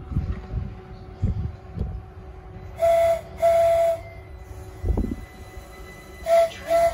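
Class 378 electric train's horn sounding two pairs of steady blasts: a longer pair about three seconds in and a short quick pair near the end.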